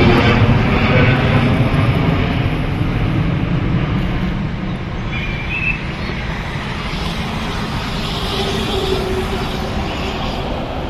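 Jet engines of a twin-engine widebody airliner climbing away after takeoff: a steady rumble that slowly fades as the aircraft recedes.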